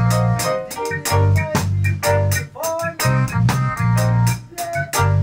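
Reggae band music: a deep, repeating bass line under sharp drum hits and held chords.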